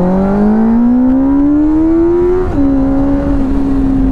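Benelli 600i motorcycle's inline-four engine accelerating, its note rising steadily for about two and a half seconds, then dropping sharply at an upshift and holding steady.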